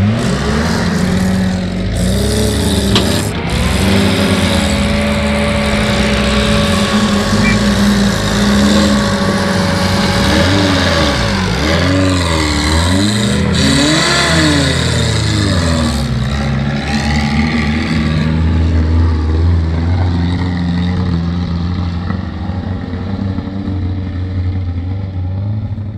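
Off-road Suzuki Jimny engine running hard under load, revving up and down again and again as the four-wheel-drive works through rough terrain.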